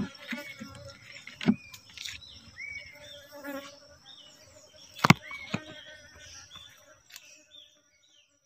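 Knocks of wood on wood as the board of a wooden beehive box is handled: the loudest comes right at the start, with more about a second and a half and about five seconds in. Small birds give short repeated chirps between them, and everything cuts off shortly before the end.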